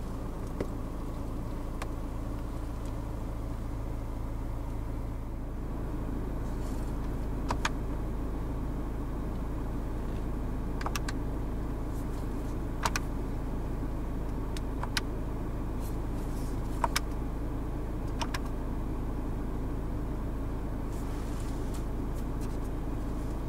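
Steady low hum of the Citroën DS5's 180 hp BlueHDi four-cylinder diesel, heard inside the cabin, with a handful of sharp clicks a second or two apart through the middle.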